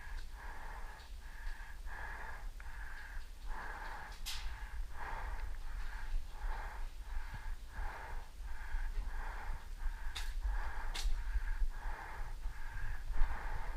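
Rapid, heavy breathing with a wheezy, whistling edge on each breath, in a steady rhythm of roughly one and a half breaths a second. Three sharp clicks cut in, one about four seconds in and two close together near the end.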